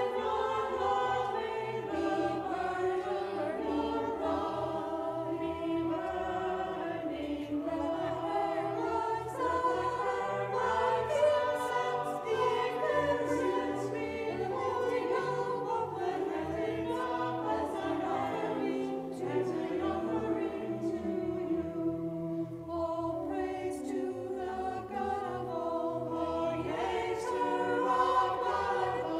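Small church choir singing a sung evening prayer liturgy in several voices, with steady low notes underneath.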